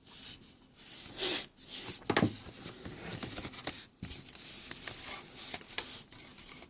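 Trading-card packs and cards being handled: irregular crinkling, rustling and tearing of a foil pack wrapper and card stock.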